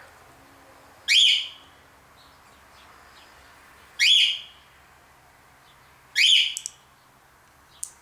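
Cockatiel calling: three loud, short rising calls, each about a third of a second long and two to three seconds apart.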